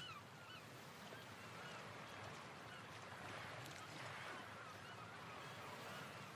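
Faint bird calls, short squawks repeated every so often, over a soft steady wash of noise.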